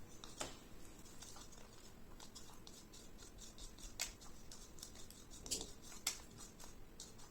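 Glitter glue slime being stirred in a bowl as it sets with the activator: faint sticky clicking throughout, with a few sharper clicks.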